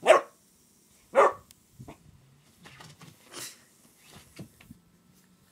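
A puppy barking twice, about a second apart, then a few quieter short noises.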